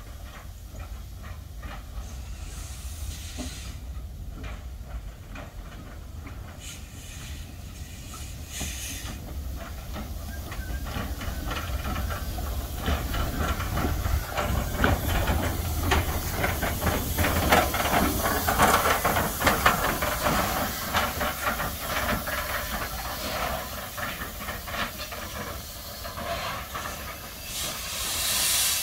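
1927 SACM 040 T tank steam locomotive running slowly past, with steam hissing and its wheels and rods clanking, loudest about halfway through as it goes by. Near the end a loud rush of steam from its open cylinder cocks.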